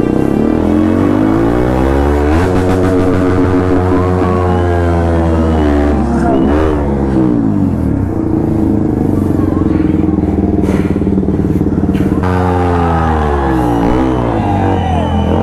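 Motorcycle engine revving up and down repeatedly, its pitch climbing and dropping in long sweeps, with background music underneath.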